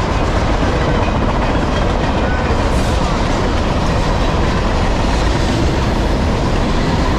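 Norfolk Southern freight train's cars rolling past close by: a steady rumble and rattle of wheels on the rails.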